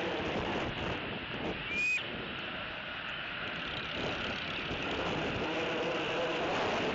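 Wind gusting across the nest camera's microphone, a steady rushing noise. About two seconds in, one short high whistled note sounds over it.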